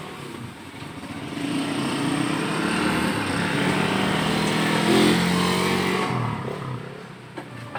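A motorcycle engine passing close by, growing louder, then fading away.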